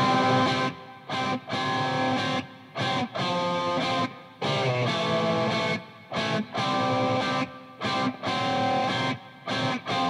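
Solo electric guitar playing sustained chord phrases in a stop-start pattern, each phrase broken off by a brief gap.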